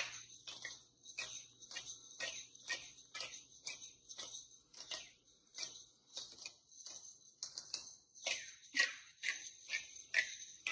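Hand pepper mill being twisted, grinding whole peppercorns: a steady run of crisp ratcheting clicks, about three a second.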